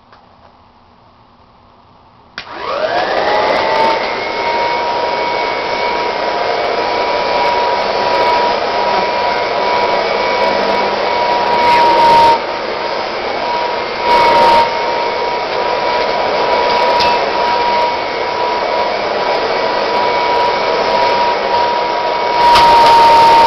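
1951 Kirby Model 512 upright vacuum cleaner switched on about two seconds in, its motor whine rising quickly to a steady high pitch as it runs over carpet. The sound gets briefly louder a few times, longest near the end.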